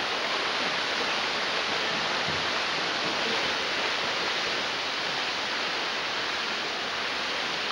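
Steady splashing and churning of water from several water polo players swimming hard across a pool.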